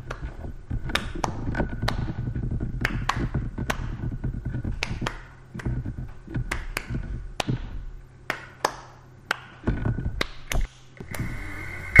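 Irregular sharp taps or clicks, about two a second, over a low rumble that drops away now and then.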